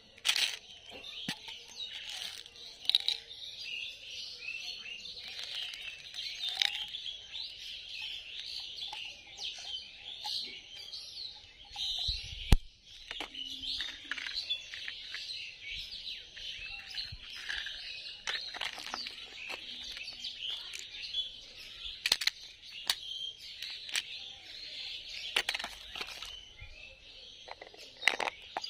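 Many small birds chirping in a continuous chorus, with scattered clicks and rustles of plastic candy packets being handled and a single thump about halfway through.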